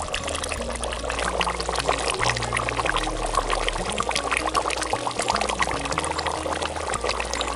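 Pork curry boiling hard in an open pot, a dense, steady bubbling and popping of the gravy. A low music bass line runs underneath.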